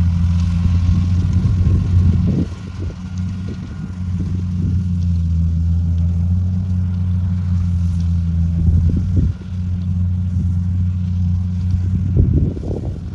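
Rice combine harvester's engine running with a steady low drone as it cuts the paddy, dipping briefly a couple of times.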